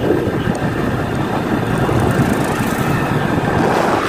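Motorcycle riding along a road: the single-cylinder engine of a Hero Splendor running at cruising speed under a steady rush of wind buffeting the microphone.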